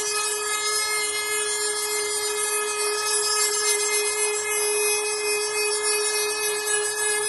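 Dremel rotary tool with a sanding bit running at a steady high-pitched whine while sanding the trimmed plastic motorcycle fairing.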